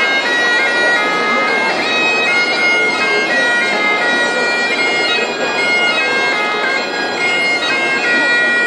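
Great Highland bagpipe playing a tune: a melody stepping between held notes over the pipes' continuous steady drones.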